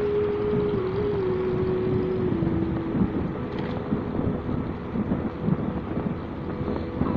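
Motorcycle running along a road at night, with wind rushing over the microphone. Its engine hum steps down in pitch twice and fades out about three seconds in, as the bike eases off.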